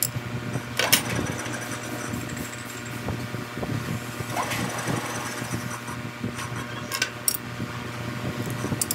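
Steady hum of workshop machinery, with a few sharp metallic clicks and taps about a second in and twice near the seven-second mark, the sounds of handling a lathe's chuck and tool post.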